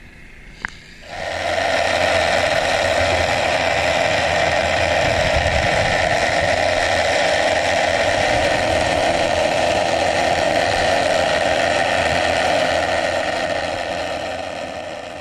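Steady machine noise heard underwater, starting abruptly just over a second in and fading out near the end, with a short click just before it starts.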